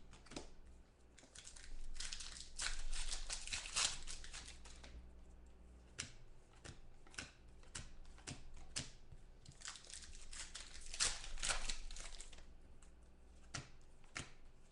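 Foil trading-card pack wrappers being torn open and crinkled, in two spells about two and ten seconds in, with light clicks and snaps of cards being handled between them.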